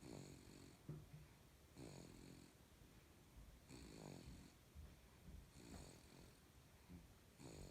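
A baby snoring softly: a pitched, rattly snore with each breath, coming about every two seconds, four times and a fifth starting near the end.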